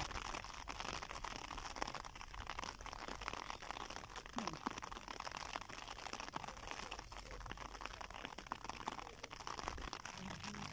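Steady crackly rustling over a low rumble, as wind blows over the microphone and stirs the grass around it.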